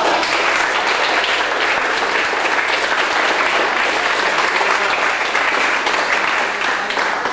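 Crowd applauding steadily, a dense clatter of many hands clapping.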